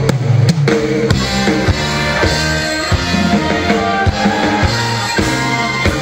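Live pop band playing an instrumental intro: a drum kit beats a steady rhythm of about two strikes a second under bass and keyboard lines.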